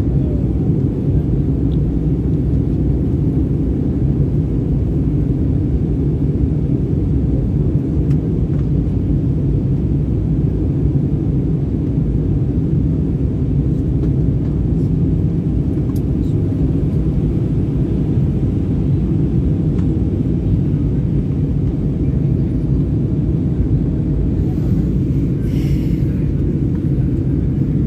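Steady low rumble of an airliner's cabin in flight: jet engines and rushing air heard from a window seat over the wing during the descent.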